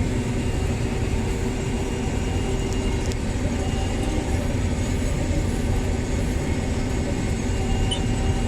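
Combine harvester running steadily while harvesting soybeans, heard from inside the cab: an even engine and machinery drone with a constant low rumble.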